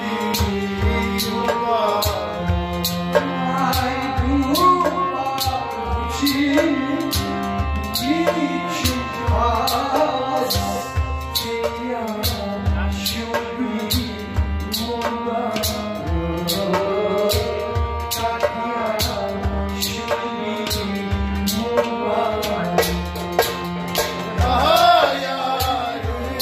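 Harmonium playing held chords and melody under a male voice singing in phrases, with a hand drum keeping a quick, steady rhythm.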